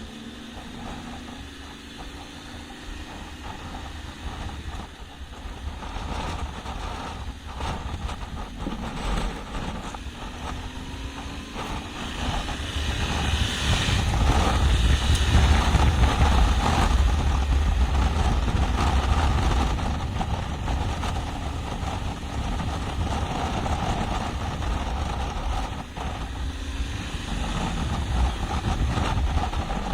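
Yamaha Ténéré 700's parallel-twin engine running as the bike is ridden off-road. It grows louder about halfway through, stays up for several seconds, then eases off.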